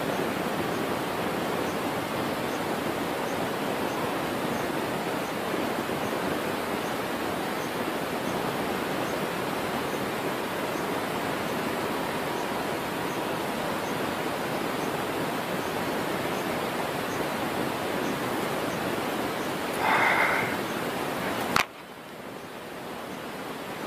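Steady, loud rushing noise with no distinct source. Shortly before the end a brief pitched sound lasting under a second is heard, then a sharp click, after which the rushing drops to a quieter level.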